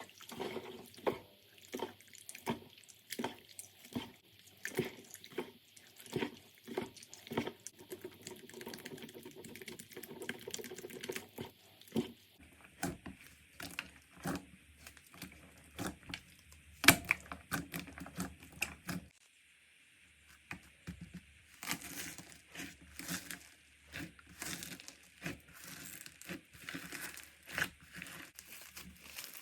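Slime being squished, poked and stretched by hand: a run of short wet clicks and pops, several a second. The texture changes about twelve seconds in, and again after a brief pause near twenty seconds.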